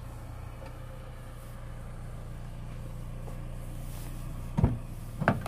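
Steady low hum of a parked car running, heard from inside the cabin, with two sharp knocks near the end.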